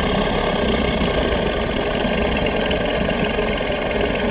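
Edited Giganotosaurus sound effect: a long, steady, deep growl.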